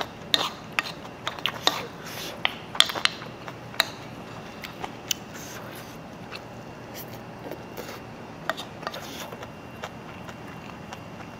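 A spoon clicking and scraping against a bowl while scooping fried rice: a quick run of sharp clicks and taps over the first four seconds, then only a few scattered ones.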